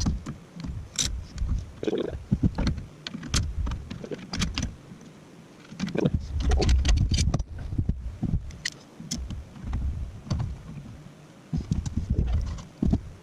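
Irregular clinks, clanks and knocks of metal parts and hand tools being handled during assembly of a steel frame, with duller thuds between them.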